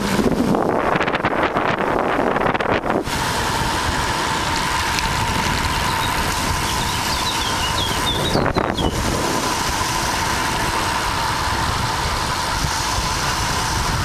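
Wind rushing over the microphone of a camera carried by a cyclist riding at speed, a steady noise. A thin steady whine joins about three seconds in.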